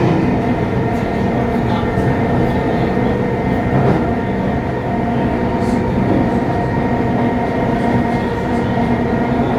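Traction motors and wheel gears of electric train car C7396 growling steadily as the train runs, several steady whining tones over the rumble of the car. The growl is the sign of really worn traction motors and/or wheel gears; these helical gears should only hum.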